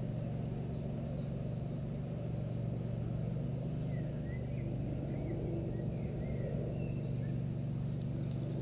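Steady low background rumble, with a few faint bird chirps around the middle.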